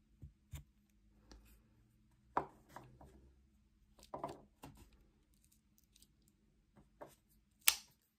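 Scattered small metal clicks and light knocks from a multi-tool pocket knife being handled while it is oiled, its tools being worked open and shut; the sharpest click comes near the end.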